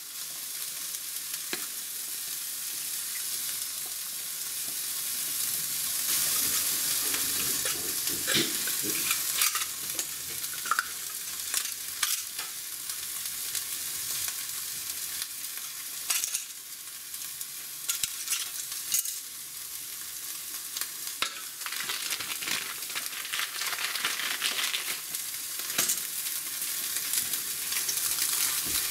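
Scattered clicks, light metal knocks and plastic crinkling as a folding metal pocket stove is handled and a solid fuel tablet is unwrapped from its plastic wrapper, over a steady hiss.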